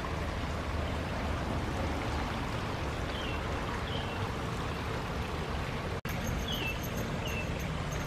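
Steady rush of a small spring-fed stream. A bird gives four short, falling chirps in the second half.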